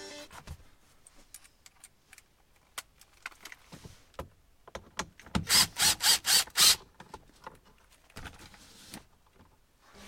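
Light clicks and rattles of tools being handled, then, about halfway in, a cordless impact driver fired in about six quick short bursts on the seat belt's upper anchor bolt, loosening it.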